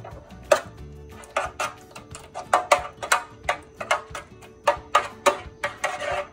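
Metal spoon scraping and tapping against an aluminium baking pan in short, irregular strokes as it spreads thick sauce, over background music.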